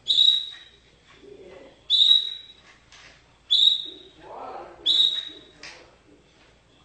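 Domestic canary singing: four loud, high calls about every second and a half, each starting sharply and holding a bright note briefly before fading.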